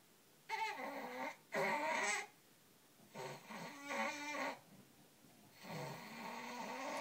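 A baby growling in four drawn-out bursts with short pauses between them, the last running on past the end. The growls may also be straining grunts, as the uploader suspects he is pooping.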